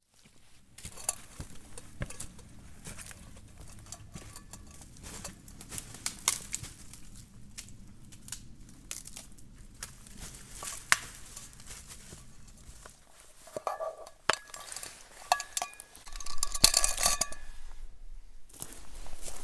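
Dry twigs and pine litter crackling and snapping, with scattered knocks of wood, as a dead pine log is hauled over rocky ground. In the last few seconds, clinking and ringing of a titanium camping mug, the loudest part.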